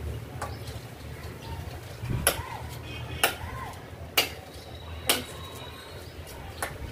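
A knife chopping sugarcane: about five sharp cracking strikes, roughly a second apart.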